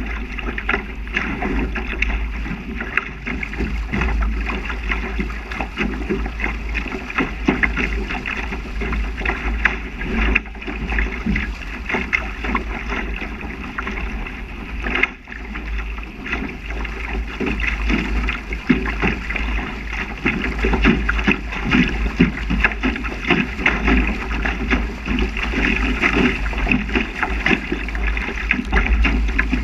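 Water rushing and splashing past the hull of a small sailing dinghy sailing fast, with wind buffeting the deck-mounted microphone as a steady low rumble.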